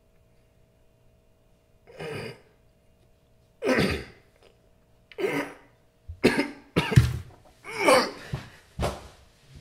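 A man coughing and choking. A few single coughs come at first, then a fit of louder coughs in quick succession, as if from a drink of water gone down badly.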